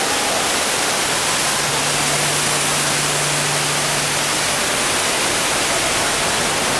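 Steady rushing hiss of falling water and mist sprays in a large planted glass dome. A low steady hum comes in about two seconds in.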